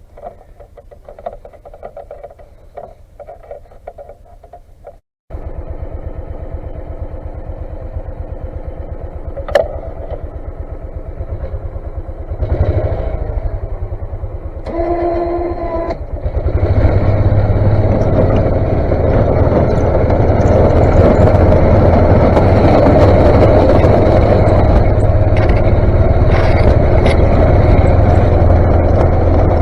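Engine of a snowplow vehicle running with an even pulsing beat, quieter for the first few seconds, then cutting in louder; about halfway through it steps up sharply and stays loud and steady, as if working under load while plowing snow.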